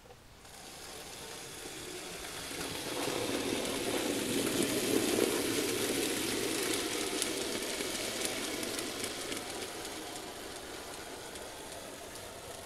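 Model steam locomotive and log wagons running past on model railway track: a steady rumble of motor and wheels that swells to a peak about four to five seconds in and then fades away, with light clicking from the wheels on the rails.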